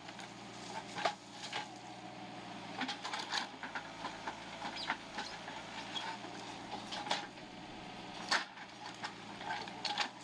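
JCB backhoe loader's diesel engine running steadily while the rear excavator bucket digs into soil, with irregular knocks and clatters of the bucket, earth and stones throughout.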